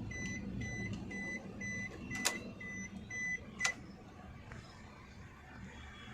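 A car's warning buzzer beeping rapidly, about four short beeps a second, with two sharp clicks, the second of which the beeping stops with, about three and a half seconds in.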